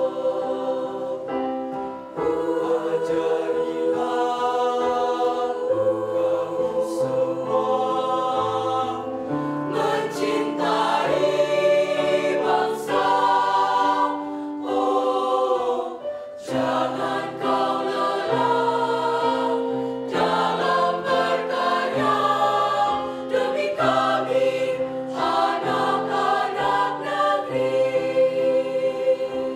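Mixed choir of male and female voices singing in several parts, men's voices carrying the low line under the higher voices. Sustained chords move from phrase to phrase, with short breaks between phrases, the longest a little past halfway.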